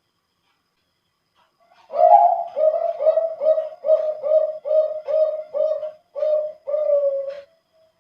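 Male zebra dove (perkutut, Bangkok competition-bred line) singing one full song phrase after a couple of seconds of quiet: a rising opening coo, a quick even run of about ten short cooing notes, then a longer drawn-out final coo.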